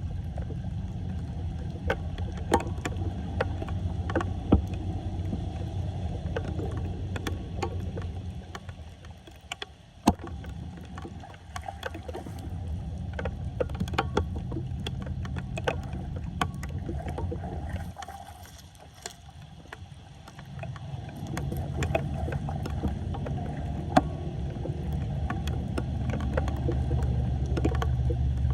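Floodwater churning and splashing in a flooded street, with scattered sharp knocks and clicks; it eases off twice for a couple of seconds.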